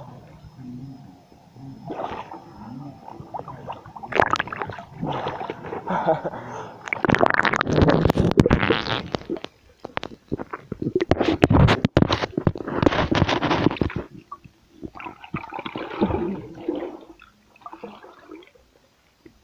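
Swimming-pool water gurgling and splashing, heard muffled from under the surface as a swimmer moves through it. The rushes come unevenly and are loudest between about seven and fourteen seconds in, then fade.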